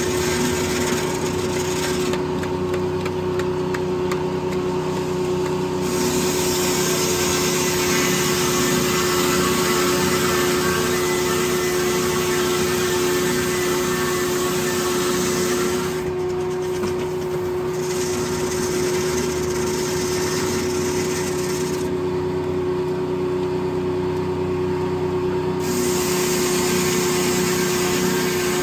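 Corley circle sawmill running as it saws white oak logs: a steady whine, with a harsher high hiss that drops away for a few seconds about two seconds in, again in the middle, and again past the two-thirds mark.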